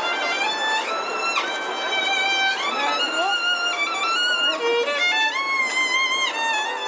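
A solo violin played by a street violinist, a slow melody of long held notes with slides between some of them.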